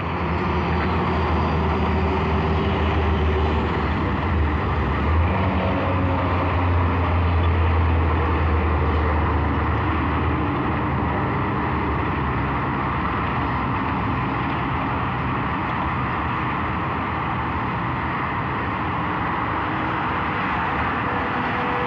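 Steady outdoor traffic and street noise picked up by a microphone outside a window, with a deep rumble that stops about ten seconds in.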